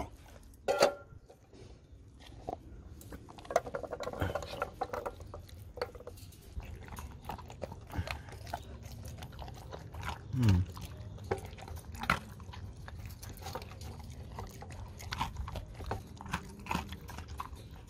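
Siberian husky eating chunks of wet dog food from a plastic slow-feeder bowl: chewing with a continuous run of small clicks and smacks. There is a short falling sound about ten seconds in.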